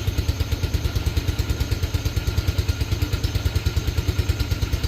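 Yamaha Mio scooter's single-cylinder engine idling with a steady, even beat, its idle speed just brought down from too high.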